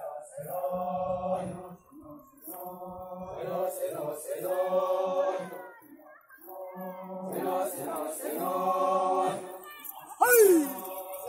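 Group of men singing a folk dance chant together in repeated phrases of about two to three seconds, with short breaks between them. About ten seconds in, a single loud shout slides down in pitch.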